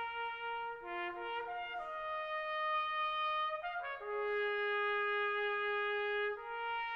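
Slow brass music led by a trumpet, playing long held notes that change pitch every second or two.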